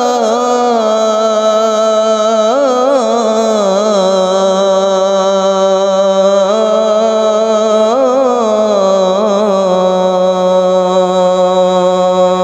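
A male muezzin calling the adhan, holding the drawn-out final vowel of 'hayya 'ala l-falah' as one long sung note. The note carries several ornamental melismatic turns, drops to a lower pitch about four seconds in, and breaks off at the very end.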